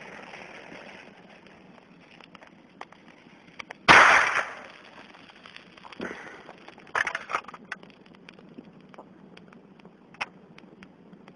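A small foil-wrapped charge of nickel bis(aminoguanidine) perchlorate primary explosive detonates with one sharp, loud bang about four seconds in, tearing open the aluminium beer can beneath it. A faint hiss of the igniting flame comes just before, and a few short crackles of the torn can being handled come after.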